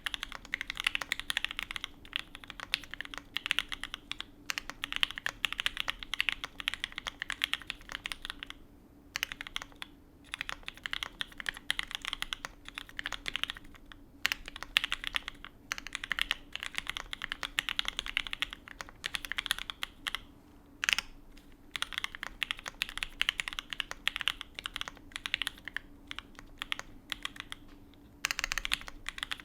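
Typing on a PHX FE Alice-layout mechanical keyboard with lubed and filmed H1 switches, a carbon fibre plate and GMK keycaps: rapid, continuous keystroke clicks in runs of a few seconds, broken by brief pauses.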